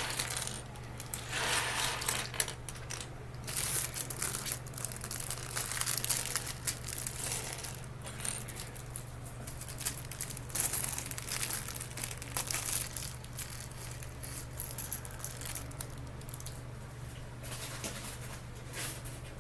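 Small plastic LEGO pieces clattering and rattling together, mixed with the crinkle of a plastic parts bag being handled, in irregular bursts throughout.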